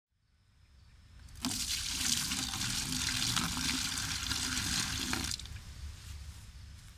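A rush of running water that starts abruptly about a second and a half in, runs steadily for about four seconds, then cuts off and trails away.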